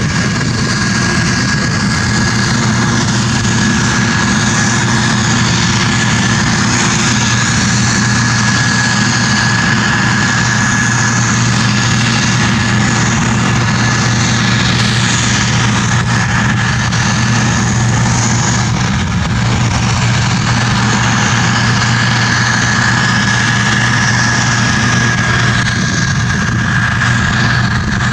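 Case IH 2388 combine running steadily while harvesting beans: a constant engine drone with a thin, steady high whine over it.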